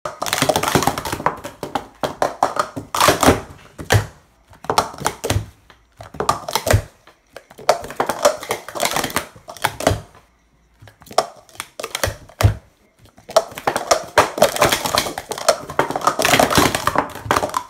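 Speed Stacks Pro Series 2 plastic cups being stacked up and down into pyramids at speed on a stacking mat: rapid clattering of plastic cups on one another, in quick runs broken by short pauses, with a few heavier thuds.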